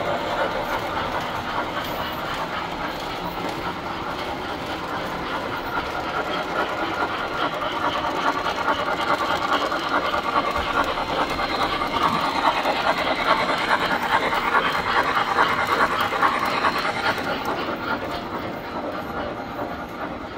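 Tinplate model trains running on three-rail tubular track: a steady, rapid clatter of wheels and running gear. It is loudest a little past the middle and eases off near the end.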